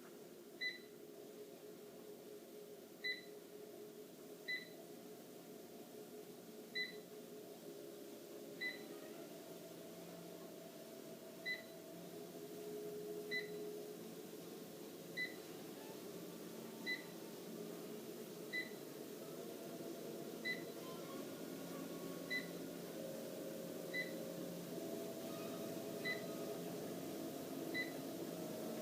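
Treadmill motor and belt running at low speed, a steady hum that grows slowly louder. A short console beep sounds about every two seconds, each one the speed being stepped up by a tenth of a mph.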